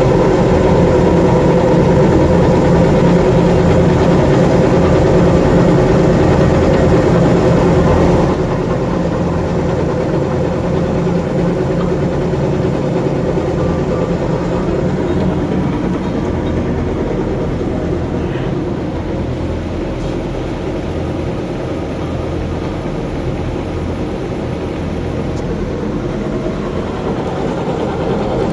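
Aronson welding positioner's table drive running: a steady electric-motor hum and whir from the exposed gear train, whose gears are unbroken, unpitted and well greased. The sound steps down a little about eight seconds in and then runs on evenly.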